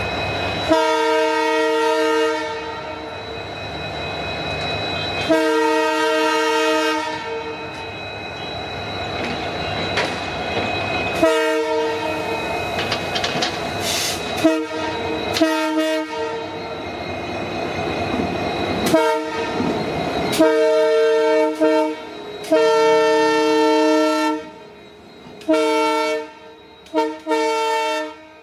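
Diesel-electric locomotive's multi-tone air horn, sounded again and again: several long blasts, then a run of short toots near the end. Between the blasts the locomotive can be heard rumbling along the rails.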